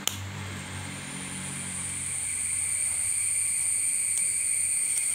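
Steady, high-pitched insect drone that swells in about half a second in and then holds, over a low engine hum that fades out in the first two seconds; a single click at the very start.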